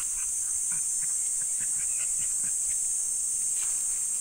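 Insects droning steadily at a high pitch, with a few faint short chirps scattered through.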